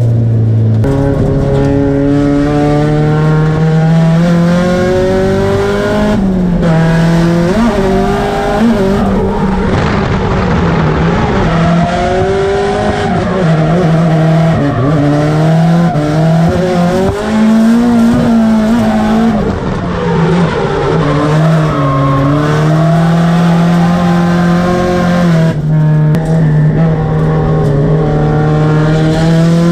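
Drift car's engine, heard from inside the cabin, held high and revving up and down as the car slides through the corners, with tyre squeal under it. The revs break off briefly a few times, about six, ten, twenty and twenty-six seconds in.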